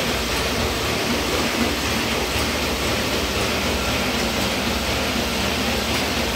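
Hamada RS34 sheet-fed offset printing press running, a steady mechanical whir with a fast low rhythmic clatter.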